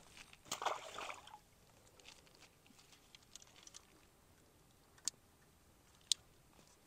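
Quiet handling noises from a fishing rod and reel being worked by hand: a short rustle, a few soft ticks, then two sharp clicks about a second apart near the end.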